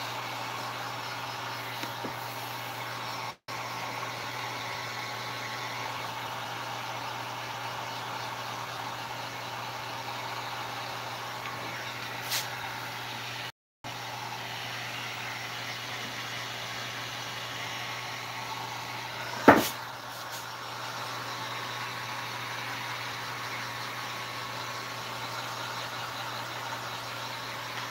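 Handheld electric heat gun running steadily, its fan blowing hot air over a vinyl tractor-seat cover to soften it. One sharp knock about two-thirds through, and the sound cuts out briefly twice.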